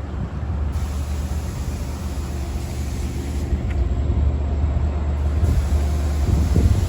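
Long Island Rail Road DM30AC diesel locomotive running, a steady low drone with faint higher tones above it.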